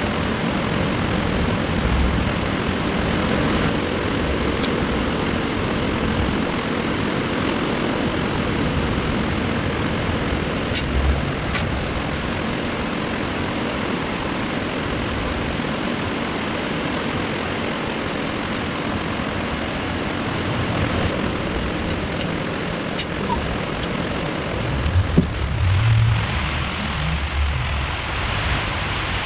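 Steady whirring machine noise, with a few low knocks; about 25 seconds in the sound changes and turns duller.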